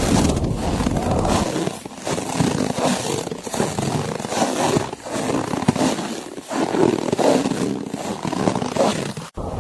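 Blizzard wind roaring through a forest in gusts, swelling and easing every second or two, with a brief sudden drop-out near the end.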